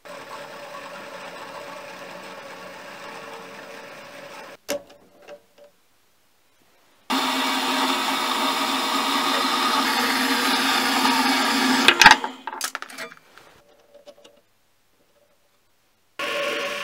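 A small metal-cutting bandsaw cuts through steel bar stock with a steady run that ends in a sharp metallic clank about twelve seconds in, followed by a few lighter knocks. Before it there is a quieter steady machine run. Near the end the mini lathe starts turning again as the steel spacer is faced.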